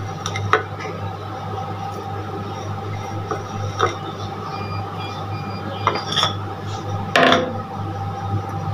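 A few scattered clinks and knocks of kitchen utensils against a stainless-steel blender jar, the loudest about seven seconds in, over a steady background hum.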